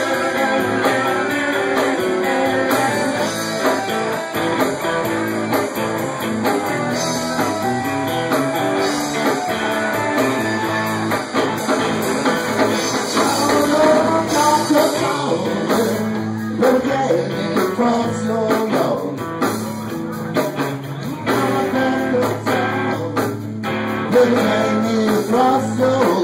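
Live blues band playing, with electric guitar to the fore and its notes bending up and down over a steady bass line and beat.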